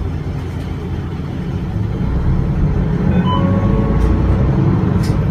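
The 6HK1 inline-six turbo-diesel of an Isuzu Erga Mio bus, heard from the rear seat inside the cabin, pulling away and accelerating; it grows louder about two seconds in.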